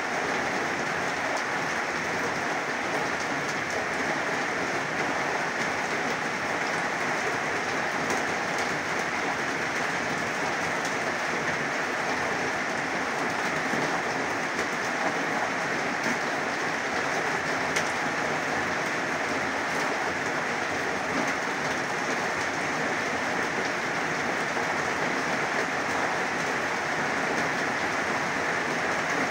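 Heavy rain falling steadily, a dense, even hiss of downpour with no let-up.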